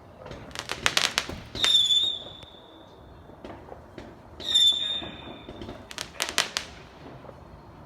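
Fireworks going off: quick clusters of crackling bangs, and twice a loud high whistle that starts sharply and holds a steady note for one to two seconds.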